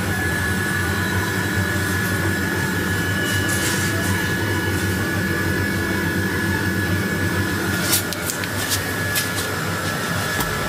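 Steady mechanical hum with a constant thin whine above it, and a few light clicks in the second half.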